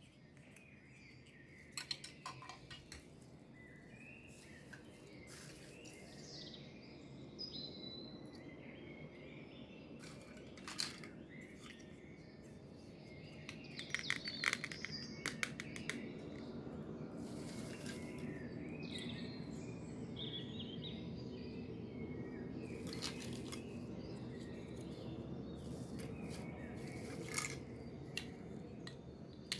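Birds chirping, with scattered sharp clicks and taps over a steady low background noise.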